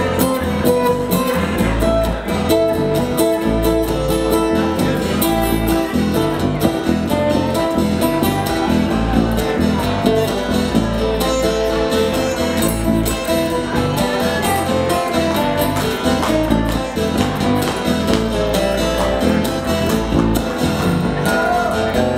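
Live acoustic-guitar band playing an instrumental stretch: two acoustic guitars strummed and picked together with an electric guitar, with no singing.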